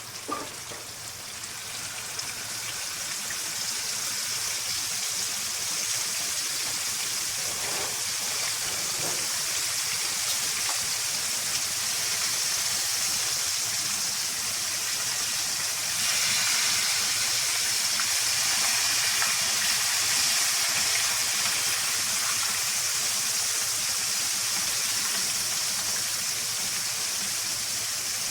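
Whole flour-coated chicken deep-frying fully submerged in hot oil: a steady sizzle that builds over the first few seconds and grows louder about halfway through. A short knock comes right at the start.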